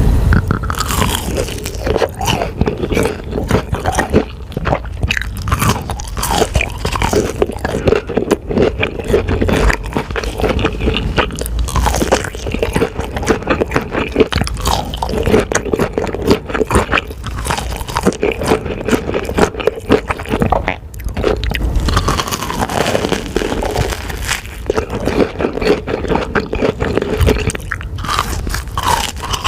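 Close-miked eating: crunchy bites and chewing, with many sharp crunches and crackles in quick succession throughout.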